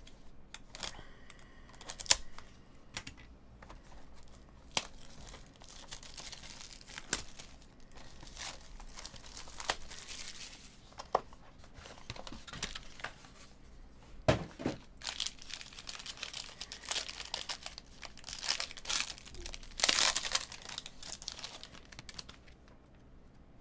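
Plastic shrink wrap being peeled and crinkled off a trading card box, then a foil card pack being torn open and crinkled, with scattered clicks and one louder knock about two-thirds of the way through.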